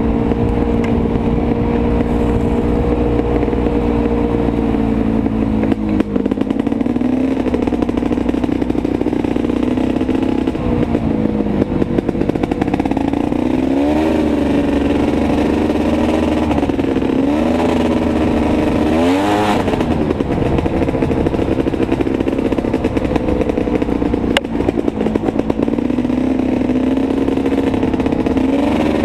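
Quad ATV engine running while riding an off-road trail. Its pitch holds steady at times and rises and falls with the throttle, with several quick revs around the middle.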